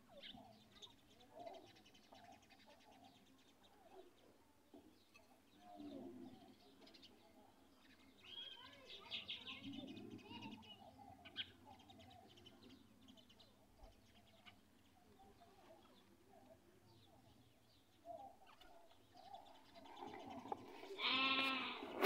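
Quiet, scattered animal calls, with one louder, drawn-out pitched call about a second long near the end.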